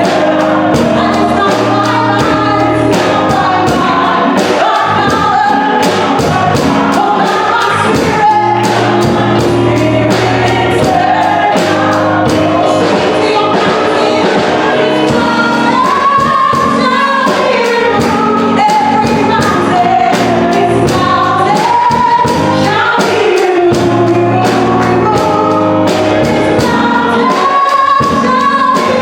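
Gospel worship song sung by a group of voices with band accompaniment: steady bass notes under the singing and a regular drum beat.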